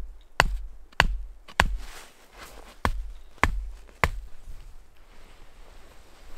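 Axe head knocking a wooden tent stake through a canvas tent's webbing loop into snowy ground: six sharp knocks in two sets of three, about half a second apart, stopping a little after four seconds.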